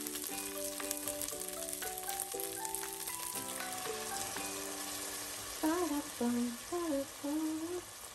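Toasted rice sizzling in a hot pot as a ladle of vegetable broth is poured onto it, under background music playing a simple melody. From about two-thirds of the way through, a voice hums a few notes, the loudest sound.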